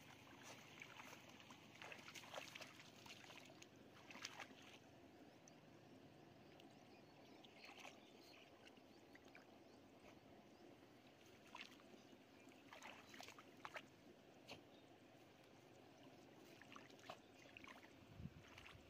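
Faint splashing and sloshing of hands groping through shallow, muddy rice-paddy water, with small irregular splashes every second or two over a low, steady background hush.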